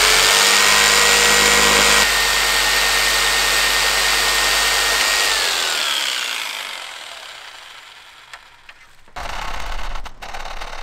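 Handheld rotary tool cutting into the plastic of a pickup grille's camera mount, its motor holding a steady high whine. About five seconds in it is switched off and winds down, falling in pitch and fading. Light scraping and handling sounds follow near the end.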